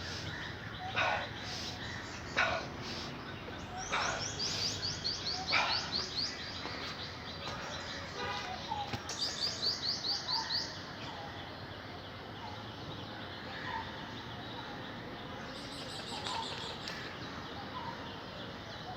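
Birds singing outdoors: two bursts of rapid, high trilled notes, with scattered short chirps between them over a steady background hiss. Four sharp knocks fall in the first half.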